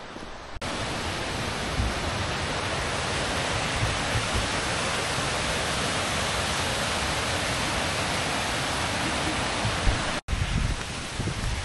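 Waterfall and cascading stream rushing through a rocky gorge: a steady rush of white water. It starts abruptly about half a second in, breaks off for an instant near the end, and comes back fainter.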